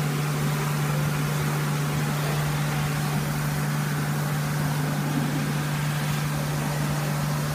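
Steady machinery hum: one constant low tone under an even hiss, unchanging in level.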